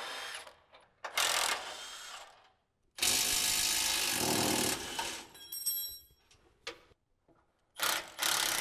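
Cordless impact wrench hammering in four bursts, the longest about a second and a half, as it undoes the transmission crossmember's mounting bolts.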